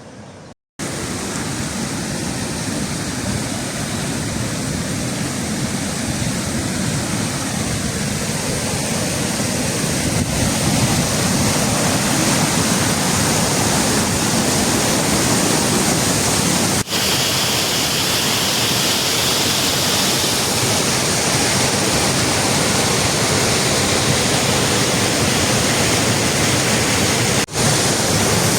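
Waterfall rushing: a steady, dense sound of falling water that grows louder over the first ten seconds. It breaks off for an instant twice, past the middle and near the end.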